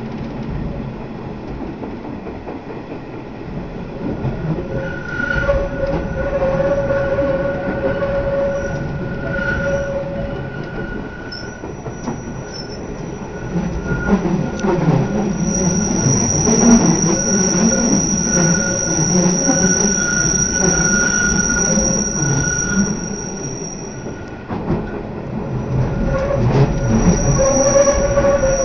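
Matterhorn Gotthard Bahn narrow-gauge train heard from inside a passenger car: a steady rumble of wheels on the rails. From about five seconds in, a shrill wheel squeal comes and goes as the train rounds the curves, and it is loudest in the second half.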